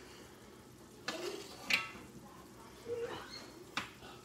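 Metal spoon basting chicken in a nonstick skillet: scooping the simmering sauce and clinking against the pan, with a faint sizzle underneath. Two sharp clinks, a little under two seconds in and again near the end.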